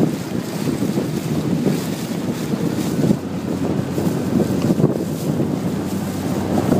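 Wind buffeting the phone's microphone as a boat runs across choppy water, with a low steady hum from the boat underneath.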